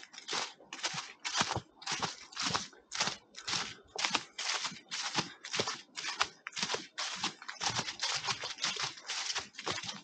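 Footsteps of people walking along a forest path, a steady, even run of nearly three steps a second.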